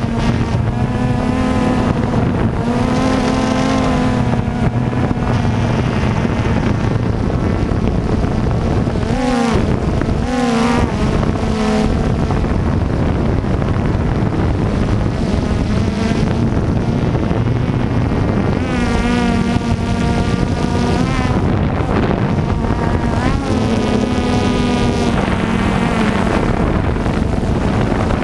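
Drone's electric motors and propellers whining over a steady rush of noise, their pitch wavering and sliding up and down as the drone manoeuvres.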